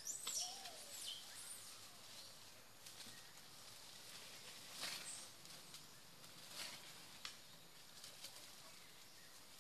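Faint forest background with a few short, high, sliding animal chirps in the first second or so, then scattered brief rustles and snaps of leaves and branches.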